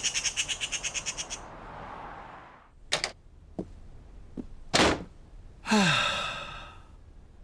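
Cartoon sound effects: a fast, even twittering of birds, then a rushing noise, a few sharp knocks and a falling tone.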